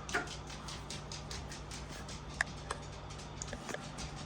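Faint scattered light clicks and ticks, with one sharper click about two and a half seconds in, over a low steady hum.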